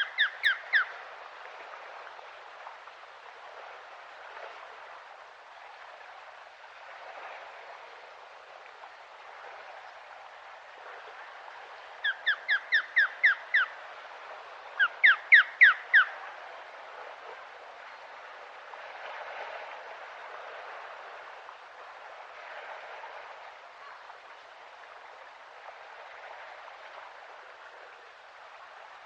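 Osprey calling: quick runs of short, sharp, falling whistled notes, about six to eight at a time, once right at the start and twice near the middle, over a steady background hiss.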